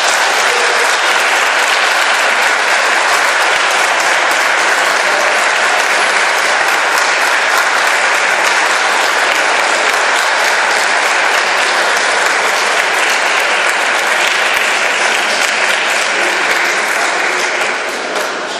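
Audience applauding: dense, steady clapping that thins out near the end.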